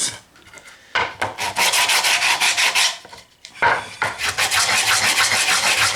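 Coarse 40-grit sandpaper rubbed quickly back and forth over drilled holes in pine, smoothing off the splintered burrs. It goes in two spells of rapid strokes with a short pause between, the first starting about a second in.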